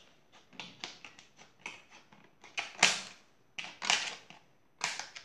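Scissors snipping through a stiff plastic pen box: an irregular series of sharp snips and cracks, the loudest about three seconds in and near the end.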